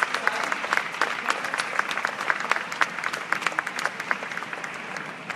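Applause from a crowd, many hands clapping at once, easing off slightly near the end.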